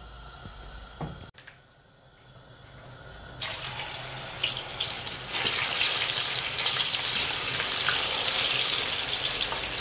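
Plantain slices going into hot oil in a frying pan and sizzling. The sizzle starts about a third of the way in when the first slice goes in, grows louder a little past halfway as a batch is added, and then holds steady.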